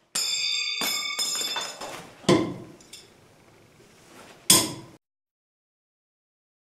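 Steel throwing knives clinking together with a ringing metallic tone, followed by two sharp knocks of knives striking the wooden target, the second one about four and a half seconds in and the loudest.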